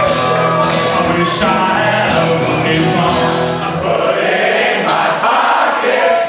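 Acoustic guitar strumming under a roomful of voices singing along to a comic chorus. About four seconds in the guitar drops out and the crowd's singing carries on unaccompanied.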